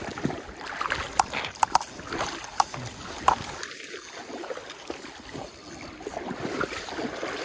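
Stream water splashing and sloshing, with several sharp clicks and knocks.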